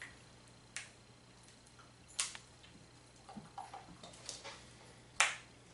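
A spoon scraping and tapping against the inside of a mixing bowl as thick casserole sauce is scraped out. There are a few sharp clicks, the loudest near the end, with soft scrapes between them.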